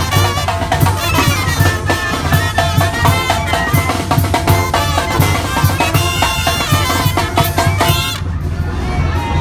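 Live Mexican brass band playing an upbeat dance tune: trumpet, clarinet and sousaphone over snare drum, cymbals and a large tambora bass drum keeping a steady beat. About eight seconds in the sound turns duller.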